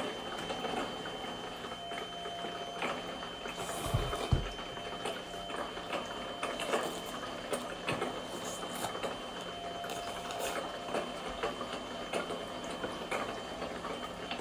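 Small electric motor of a toy spiral nagashi-soumen (flowing noodle) slide running steadily with a thin whine and a low hum as it pumps water down the plastic chute. Light clicks of chopsticks on the plastic throughout, and a low thump about four seconds in.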